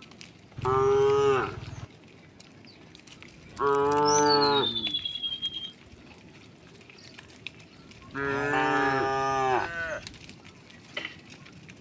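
Cattle mooing: three long moos, each one to two seconds long and sagging in pitch at the end, with gaps of a few seconds between them. A thin falling whistle sounds during the second moo.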